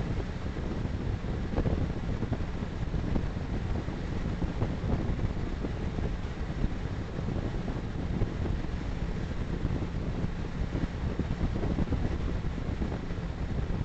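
Steady wind and road rumble of a vehicle cruising at motorway speed, about 115 km/h, heaviest in the low end, with wind buffeting the microphone.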